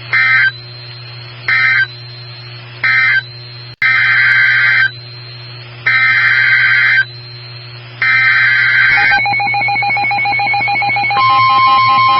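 NOAA Weather Radio SAME data bursts: three short end-of-message bursts, then three longer header bursts announcing the next alert, each a harsh digital squawk. Near the end the steady 1050 Hz warning alarm tone begins.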